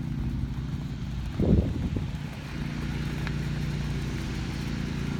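A motor engine running steadily, with a brief louder sound about one and a half seconds in.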